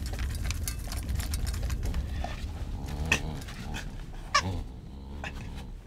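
A small dog eating and playing: a run of quick clicks and rattles, with two short, sharp pitched sounds about three and four and a half seconds in.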